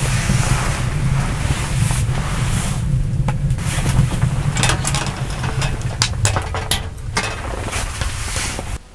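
Wood fire burning in the firebox of a small steel tent stove: a steady low rumble of the flames, with frequent sharp crackles and pops from the burning logs.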